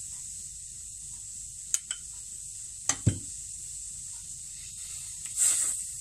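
A spoon clicks a few times against an aluminium cooking pot of milk and coconut paste. Near the end it stirs and scrapes through the liquid. A steady faint hiss runs underneath.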